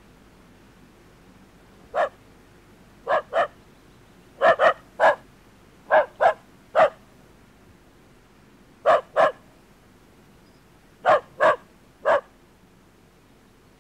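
A dog barking: about fourteen short, sharp barks in uneven bursts of one to three, starting about two seconds in and stopping shortly before the end.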